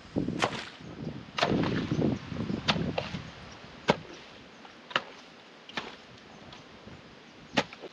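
A digging tool chopping into wet soil to cut a drainage ditch. It strikes sharply at irregular intervals, about eight times, with a heavier, duller sound of earth being moved during the first three seconds.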